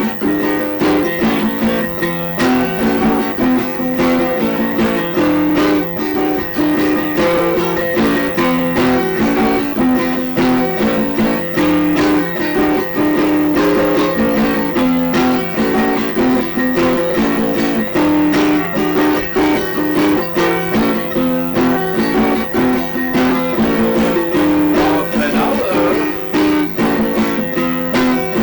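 Instrumental music led by a plucked guitar playing a repeating note pattern at a steady pulse.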